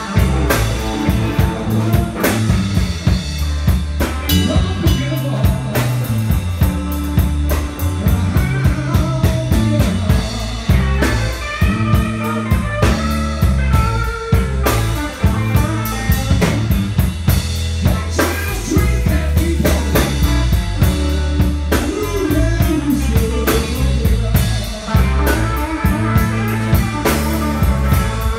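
Live blues band playing: electric guitars with bending notes over electric bass and a drum kit keeping a steady beat.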